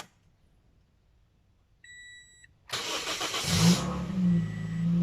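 A short electronic chime beeps once, then the car's starter cranks for about a second and the engine catches, its revs flaring briefly before settling into a steady idle on the newly fitted battery.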